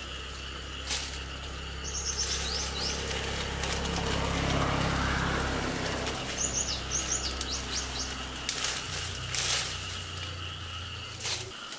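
Small birds chirping, with a quick run of short falling calls about two seconds in and another about six to seven seconds in, over a steady high insect drone. A low steady hum runs underneath and stops just before the end, and a few sharp knocks or rustles sound now and then.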